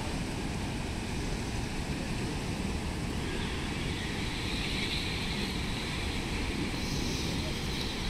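Water released through a dam's sluice gate, rushing and churning into the basin below: a deep, steady rush with a hiss on top.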